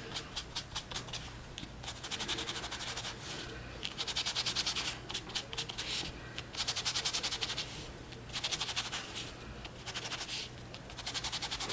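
Small foam sponge rubbed in quick scratchy strokes over crumpled cardstock, inking it, in several bouts a second or two long with short pauses between.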